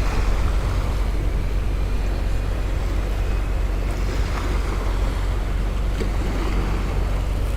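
Steady wind buffeting the microphone with a low rumble, over the continuous wash of the sea.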